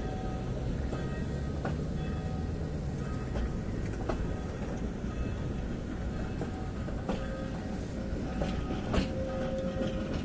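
Tram rolling past on its rails, its wheels giving a few sharp clacks over rail joints and points against a continuous rolling rumble. A low steady motor hum runs in the first few seconds, and a short steady higher tone sounds near the end.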